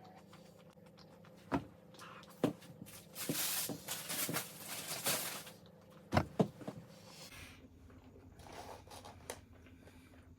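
Close-up eating and food-handling sounds: a few sharp clicks and taps, with a few seconds of crinkly rustling in the middle, as of paper packaging or crisp food being handled.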